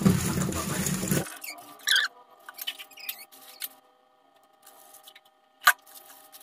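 Tap water running into a stainless-steel sink, cutting off about a second in; then faint squeaks and rustles as wet tofu is handled and cut, and one sharp clink of a knife against the steel sink near the end.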